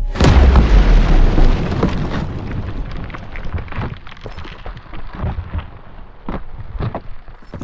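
Explosion sound of a binary-explosive (Tannerite) target: a deep boom hits suddenly about a quarter second in, then rumbles and slowly fades, with several sharp cracks in the tail.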